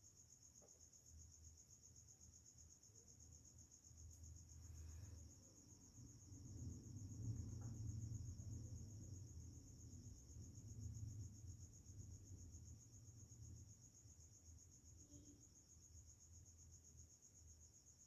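Faint, steady high-pitched insect trill that never breaks, with a low rumble swelling in the middle, loudest about seven to eight seconds in.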